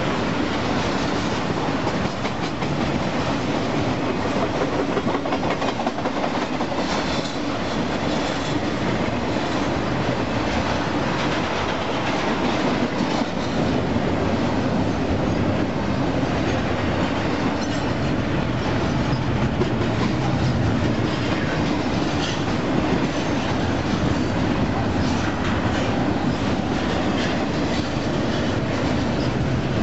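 Double-stack container well cars of a Union Pacific intermodal freight train rolling past on the near track: a steady rumble of wheels on rail with a running clickety-clack.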